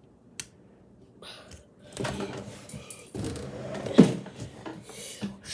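Plastic Lego bricks of a toy brick-built gun being handled: a click, then a run of clicks and rattles with one loud knock about four seconds in.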